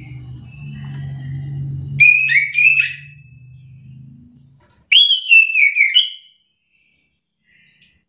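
Chestnut-capped thrush singing two loud phrases of warbling whistled notes, one about two seconds in and one about five seconds in, each about a second long. A low steady hum runs underneath during the first half and fades out.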